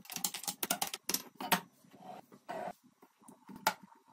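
A spoon stirring hawthorn fruit in water inside large glass jars, knocking and clinking against the glass in a dozen or so irregular strokes.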